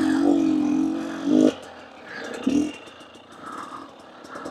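KTM 250 EXC two-stroke enduro engine held at steady revs, then the throttle closes about a second and a half in and it drops to a quiet idle with light clatter.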